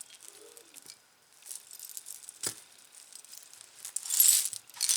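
Tangled metal jewelry chains and beads clinking and jingling as they are handled, with scattered light clicks and a louder jangle about four seconds in.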